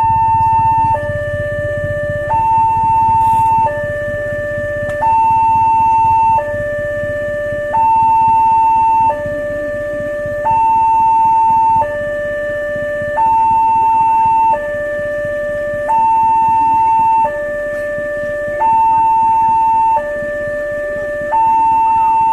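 New railway level-crossing warning siren sounding a two-tone hi-lo alarm: a higher tone and a lower tone alternate, each held about a second and a half, repeating steadily, the higher tone louder.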